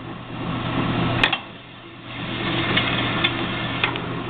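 Horizontal metal-cutting band saw with a 1 hp motor and three-speed geared head, running with a steady hum. A sharp click about a second in is followed by a brief dip in the sound, which then builds back up to a steady run with a few light ticks.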